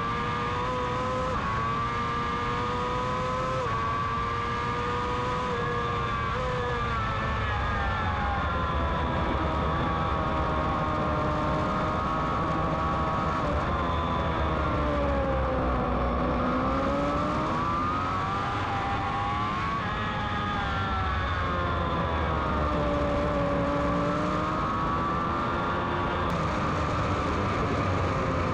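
Honda CBR600RR's inline-four engine revving hard on track, over steady wind rush on the onboard microphone. It climbs and steps down through several quick upshifts in the first few seconds. The revs fall away and pull up again through corners, dipping lowest about halfway through.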